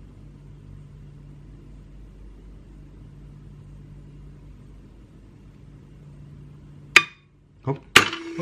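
Small RC winch motor straining at stall against about 29 kg of pull, a faint steady hum. About seven seconds in, a sharp snap as the line lets go and the hum cuts out, then a knock and a loud metallic clatter with ringing as the hook and scale fall free.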